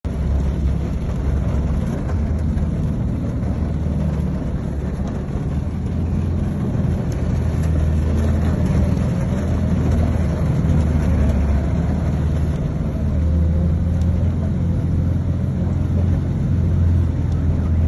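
A vehicle driving through deep floodwater: a steady low engine rumble mixed with the rush and splash of water churned up around it.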